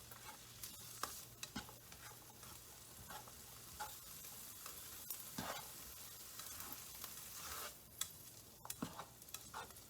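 Sliced bell peppers frying in a pan, a faint steady sizzle with scattered short clicks of a utensil stirring them.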